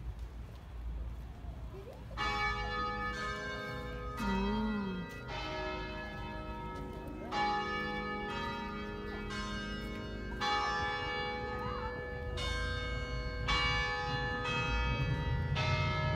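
Church bell ringing, struck about once a second from about two seconds in, each stroke ringing on under the next, over a low street rumble.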